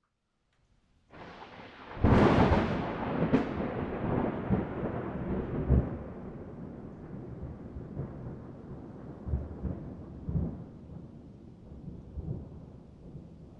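Thunder: a sharp, loud clap about two seconds in, followed by a long rolling rumble that slowly fades.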